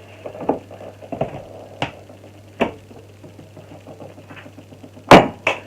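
Irregular sharp clicks and knocks, as of objects being handled, over a low steady hum, the loudest two close together near the end.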